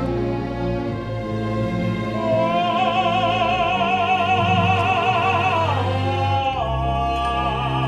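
Operatic tenor singing with a symphony orchestra. The orchestra plays alone at first; about two seconds in the tenor enters on a long held note with wide vibrato, slides down near the end and holds a new note.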